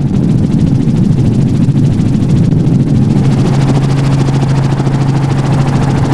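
Helicopter running steadily overhead, its rotor beating in rapid, even pulses over a steady low hum.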